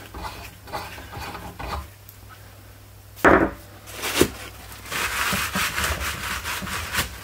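Lug nut being unscrewed by hand from a freshly pressed-in wheel stud on a loose wheel hub: metal threads scraping and clicking. A louder knock comes about three seconds in and a sharper click a second later, then a steady scratchy rasping.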